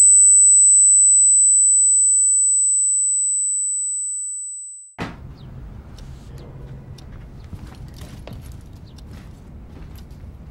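A single high, steady ringing tone, like ringing in the ears, slowly fading for about five seconds and then cut off sharply. Quiet room sound with a low hum and scattered small clicks and knocks follows.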